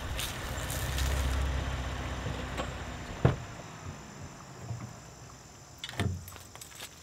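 Ford Transit van rolling in over a leaf-strewn dirt track with a low engine rumble and tyre crackle that fades out after about two and a half seconds. Then a sharp click a little after three seconds and a thump about a second before the end as the driver gets out.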